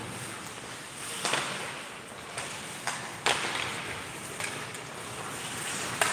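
Ice hockey play in an indoor rink: skate blades scraping the ice under a steady hiss, with a few sharp knocks of sticks and puck, the loudest about three seconds in.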